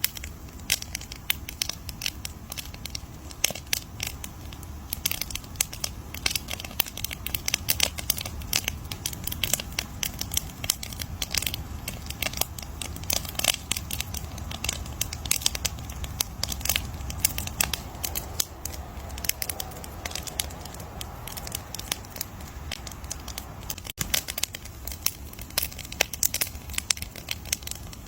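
Bonfire crackling: dense, irregular pops and snaps over a steady low rumble of the flames, with a split-second break about 24 seconds in.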